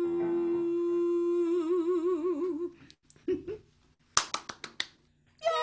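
A woman's singing voice holding the final note of a song, steady at first and then with a wide vibrato, for nearly three seconds before it stops. After a short pause, about six quick hand claps a little past the four-second mark.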